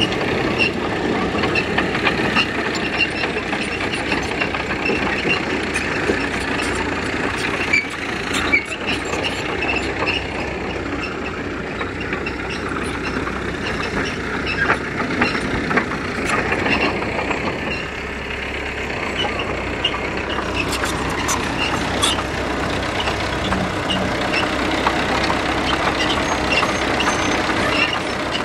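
Diesel engines of earthmoving machinery, a mini bulldozer and dump trucks, running steadily, with scattered clanks and knocks over the drone.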